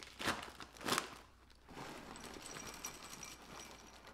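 A plastic snack bag ripped open with two quick tears, then crinkling and a light rattle as small crackers are poured into a glass bowl.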